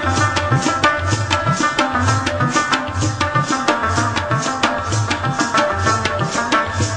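Background music: a quick, steady drum rhythm with sliding bass strokes under held melody notes.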